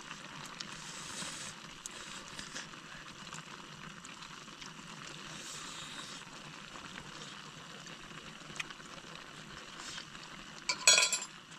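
Steady hiss of a pot of shrimp and mushroom broth cooking over the flame, with a few light clicks. A short, loud clatter of clinks comes near the end.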